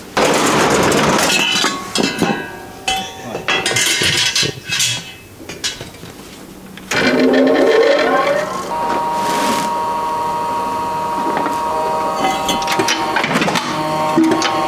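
Large sheets of fabric and backing material rustling and sliding as they are handled and laid out. About halfway in, a steady humming tone with several overtones takes over.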